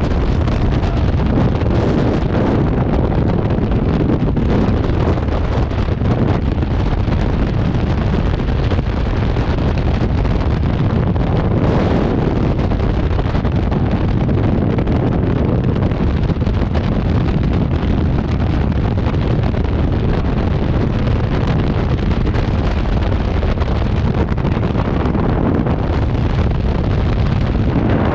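Freefall wind rushing over a skydiver's camera microphone: a loud, steady roar of wind noise without a break.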